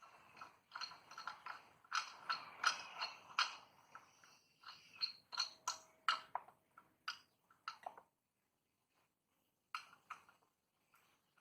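Metal parts of a drill press stand knocking and clicking together as they are handled and fitted by hand, a run of small clicks and knocks with faint ringing, pausing for about two seconds before a few more clicks near the end.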